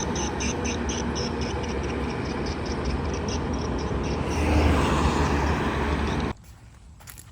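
Steady, loud vehicle-like rumble with a fast, regular high pulsing over it for the first few seconds. It cuts off abruptly about six seconds in, leaving a much quieter stretch with a few faint taps.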